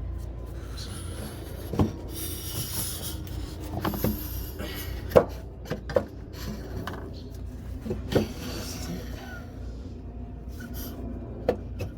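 New air suspension airbag being worked into its mounting by hand: rubbing and scraping, with about six sharp knocks spread through, the loudest about five seconds in.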